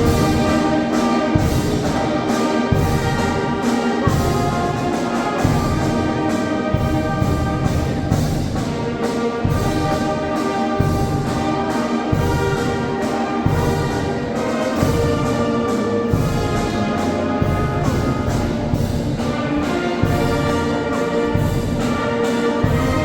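A Oaxacan Sierra Mixe philharmonic wind band playing: brass instruments hold full chords, with low bass notes changing about every second.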